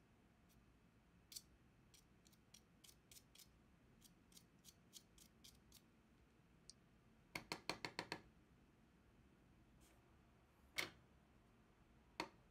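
Faint small clicks and ticks of a metal pin picking at the plastic insides of an opened computer mouse, then, a little past the middle, a quick run of about six louder plastic clicks as the mouse is handled, and a couple of single clicks later.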